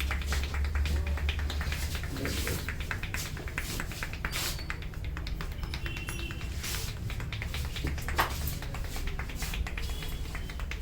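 Rapid taps and cracks of a barber's hands working on a head during a traditional Indian head massage, with one louder crack late on. A steady low hum runs underneath.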